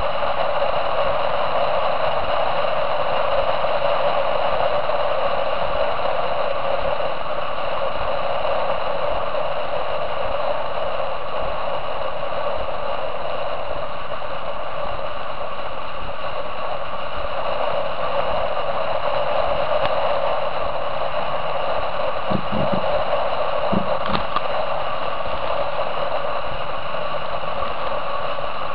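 Steady rushing noise of wind and water streaming past a bow-mounted camera on a racing trimaran under sail, hissy and without much bass, with a faint steady high whine. A couple of brief low bumps come near the end.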